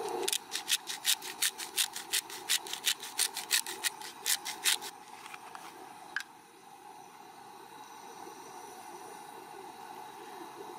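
Spice shaker shaken over a glass bowl of shrimp: a quick, even run of rattling shakes, about four a second, for roughly five seconds. A single sharp click follows about six seconds in.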